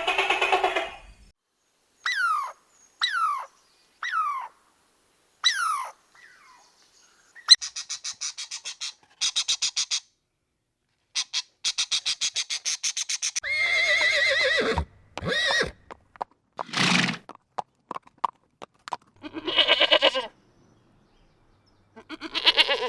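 A series of different farm animal calls one after another, with short gaps between them: four quick falling chirps, then rapid stuttering trains of pulses, then several longer drawn-out calls.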